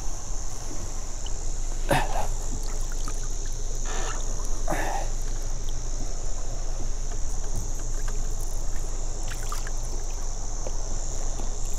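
A few short water splashes as a squid is pulled up from the water and grabbed by hand at a boat's side, over a steady low wind rumble on the microphone and a steady high hiss.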